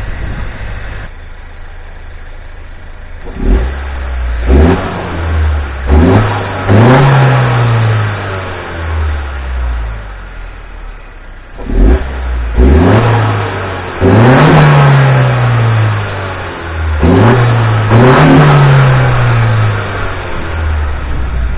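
2017 Honda Civic's 1.5-litre turbocharged four-cylinder (L15B7), fitted with an aftermarket cold air intake, free-revving in short blips, mostly two at a time, each rising then falling back to idle. A brief hiss comes in at the top of several revs.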